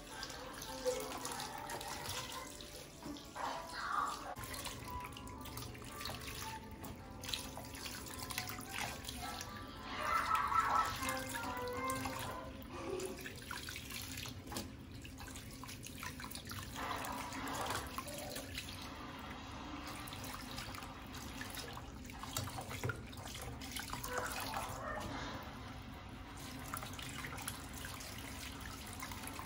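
Tap water running into a plastic basin while leafy greens are rinsed and swished about by hand.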